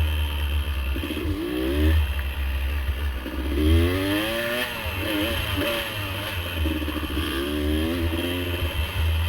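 Dirt bike engine revving up and falling back several times under throttle, with some clatter over the steady low engine note.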